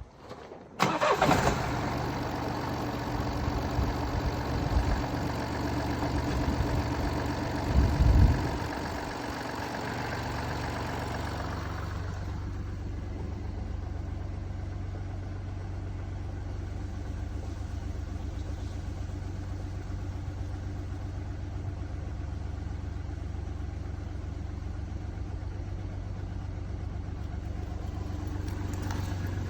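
Mini Cooper D's three-cylinder diesel engine starting about a second in and running fast and loud with a broad hiss, with a low thump about eight seconds in, then settling at about twelve seconds into a steady, quieter idle. The car has a broken dual mass flywheel, and the hissing comes from an air intake to the turbo corroded by an oil leak.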